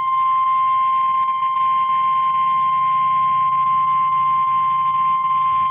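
NOAA Weather Radio 1050 Hz warning alarm tone: one steady, unbroken high tone over a low radio hum. It signals that a warning broadcast follows, here a severe thunderstorm warning.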